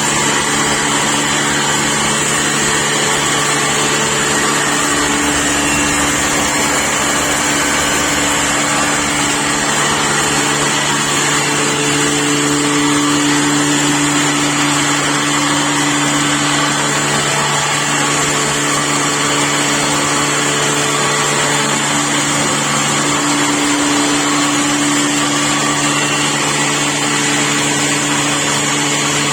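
A 12-inch double-stage blower-type pulveriser driven by a 10 hp motor, running steadily: an even motor hum under a continuous rushing whir.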